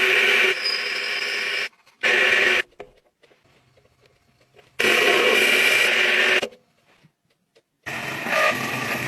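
A metal lathe running with a steady mechanical whine and noise, in several separate stretches that start and stop abruptly, with near silence between them.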